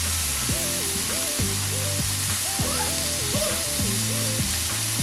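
Background music: a short melodic phrase repeating over held bass notes, at a steady level.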